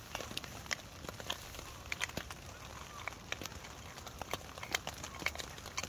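A small twig fire crackling in a Kelly Kettle's fire base (hobo stove), with irregular sharp pops and snaps, a few a second.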